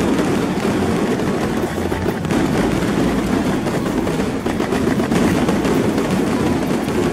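Fireworks going off in a dense, continuous barrage of rapid pops and crackles.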